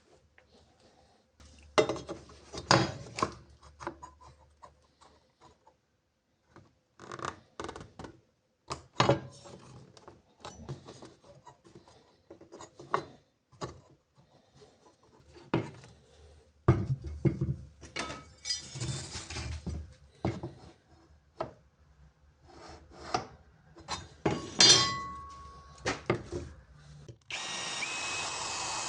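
Workshop handling of wood and laminate pieces and tools on a bench: a string of irregular knocks, clacks and scrapes with short pauses between them. Near the end a power tool starts and runs steadily.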